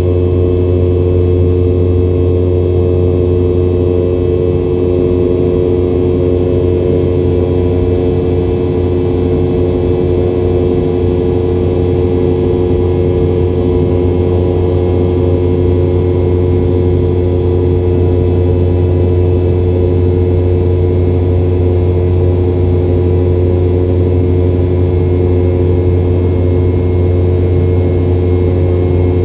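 Steady drone of a Boeing 717-200's Rolls-Royce BR715 turbofan engines: a strong low hum with several steady tones above it, unchanging throughout.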